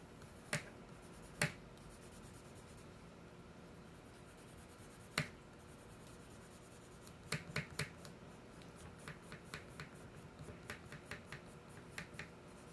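Wax crayon colouring on paper laid on a table: three sharp isolated ticks, then from about halfway through a run of short scratchy strokes at about three a second, with quiet between.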